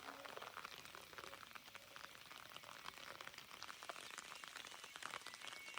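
Rain falling: a faint, steady hiss made of many small drop ticks.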